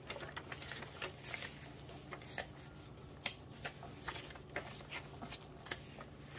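Pages of a thick handmade junk journal being turned by hand: repeated soft rustles and crisp flicks of aged paper.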